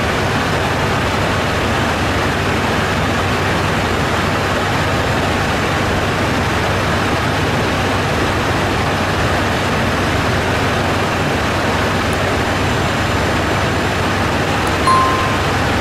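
Steady airliner cabin noise at cruising altitude: an even rush of air and engine noise with a faint low hum. A short beep comes near the end.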